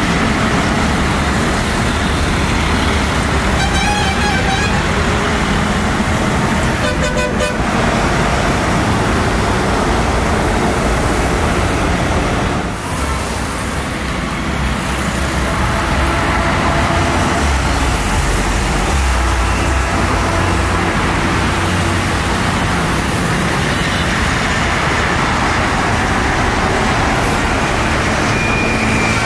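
Steady, loud road traffic noise with vehicle horns tooting.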